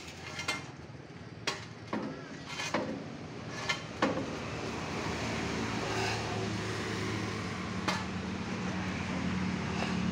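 Sharp metal clanks and knocks while a machine is being loaded onto a vehicle. From about four seconds in, a vehicle engine runs steadily beneath them.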